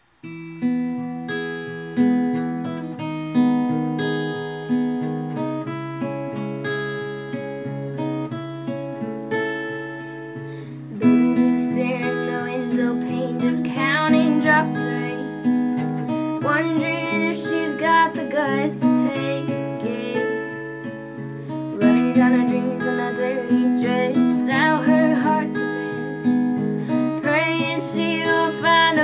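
Acoustic guitar playing picked chords for a song's opening. About eleven seconds in it gets louder, and a higher, wavering melody line joins above the chords.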